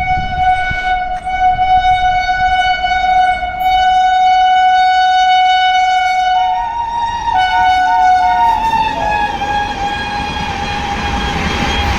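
WAP7 electric locomotive's air horn sounding one long, loud, continuous blast. About six seconds in a second, higher tone joins, the pitch dips slightly near nine seconds, and the rumble of the train rises near the end.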